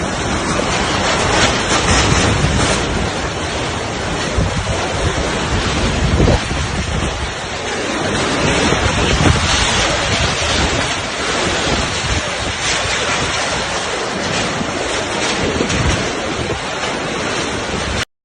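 Typhoon winds blowing on the microphone: a loud, continuous rushing noise that cuts off abruptly near the end.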